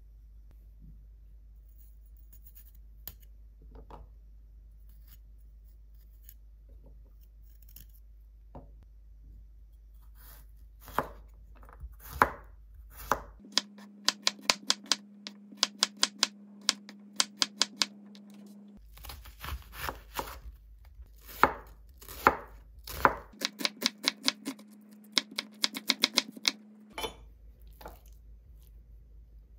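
Kitchen knife chopping garlic cloves on a wooden cutting board. Faint scattered taps at first, then from about eleven seconds in quick runs of sharp knife strikes, several a second, which stop near the end.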